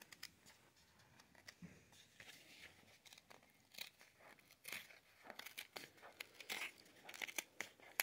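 Card-and-plastic packaging being torn and peeled open by hand: faint, irregular crinkling and short rips, sparse at first and busier and louder in the second half.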